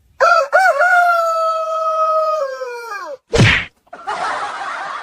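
A rooster crowing: one long call of about three seconds that wavers at the start, holds level, then falls away at the end. A sharp thump follows, then a wavering, noisy sound near the end.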